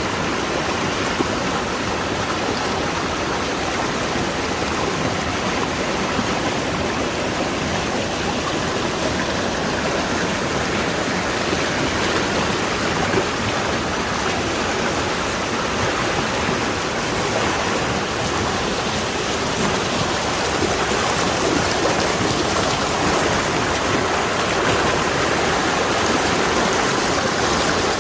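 Mountain valley stream rushing, a steady, fairly loud water noise that swells slightly in the last third.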